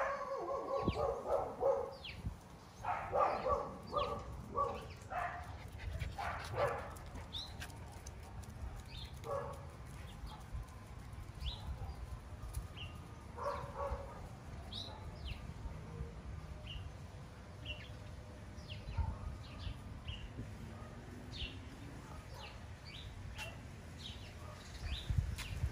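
Miniature schnauzer puppies yipping and whining as they play-fight, most busily in the first several seconds, with brief yips twice later. Small birds chirp throughout.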